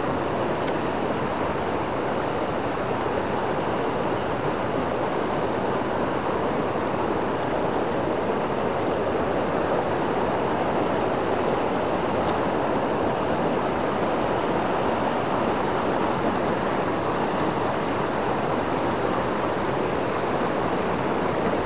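Fast mountain stream rushing over rocks and small cascades: a steady, even rush of water.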